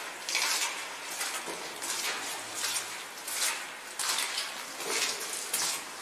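Footsteps crunching over small loose rocks on a cave floor, at a steady walking pace of roughly one step every two-thirds of a second, with the gritty scrape of each step echoing in the cave.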